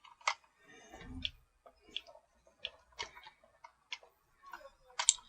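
Hard plastic toy parts clicking as a gun is pushed and worked into its socket on a Stridor figure: scattered light clicks, with a soft thump about a second in and the loudest click near the end.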